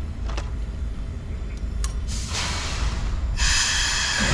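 Steam locomotive venting steam: a hiss starts about two seconds in, then a louder, longer hiss from about three and a half seconds on, over a low rumble.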